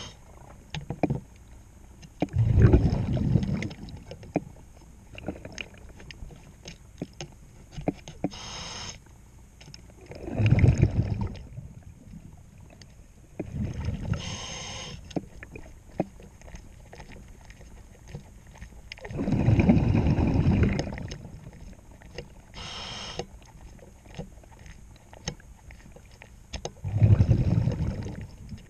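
A scuba diver breathing through a regulator underwater: about five loud rushes of exhaled bubbles a few seconds apart, and between them the short high hiss of the regulator on each inhale. Faint scattered clicks run throughout.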